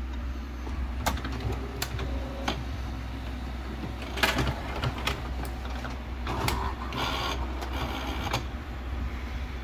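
HP ENVY Photo 7858 all-in-one printer starting a document copy: a few separate clicks, then short spurts of motor whirring and mechanical clatter from its feed and scan mechanism.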